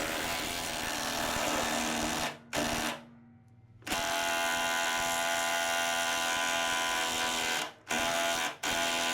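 Impact wrench run in several long trigger pulls, with a pause of about a second three seconds in and short breaks near the end, driving a press screw to force a suspension bushing into place. The part has stopped advancing and is not yet fully in.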